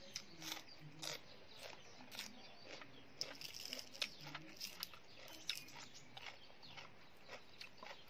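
A person chewing food close to the microphone: irregular wet clicks and crunches, with a denser run of crunching about three to four seconds in as a raw green vegetable is bitten.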